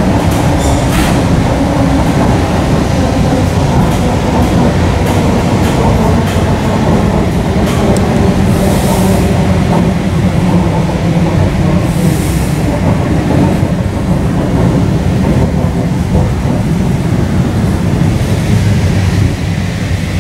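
ER2T electric train coach heard from inside while running: a steady, loud rumble of wheels on the rails, with clicks over rail joints in the first second or so. Brief hisses come about 9 and 12 seconds in.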